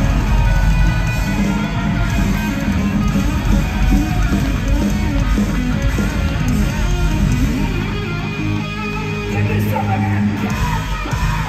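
Live rock band playing loudly, led by an electric guitar on a hollow-body instrument, with bass underneath.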